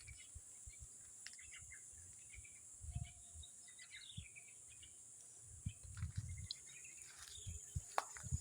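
Outdoor ambience: a steady, high insect drone with scattered bird chirps, and occasional low thuds.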